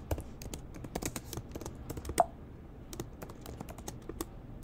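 Typing on a computer keyboard: a run of irregular key clicks, with one louder keystroke about two seconds in.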